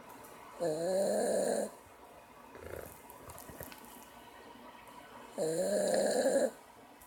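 Puggle snoring loudly: two long, pitched snores about five seconds apart, each lasting about a second, with quieter breathing in between.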